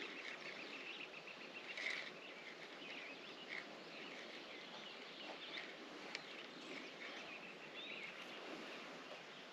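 Small birds chirping and calling over a steady outdoor hiss, with a quick trill of short repeated notes in the first second and a half. A single sharp click comes about six seconds in.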